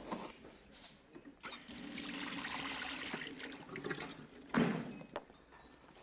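Tap water running steadily into a stainless steel lab sink for about two seconds, starting about one and a half seconds in. A brief, louder sound follows about four and a half seconds in.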